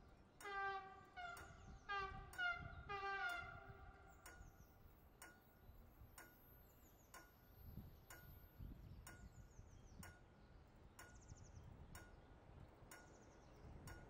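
An animal calls five or six times in short, pitched cries over the first four seconds, then the scene goes quiet apart from faint high chirps and faint sharp ticks about twice a second.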